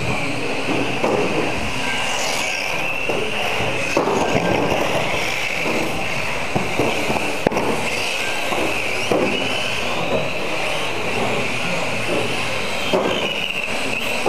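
Several electric radio-controlled mini cars racing on a carpet track: a high motor whine that wavers up and down as the cars speed up and brake, with scattered sharp clicks and knocks.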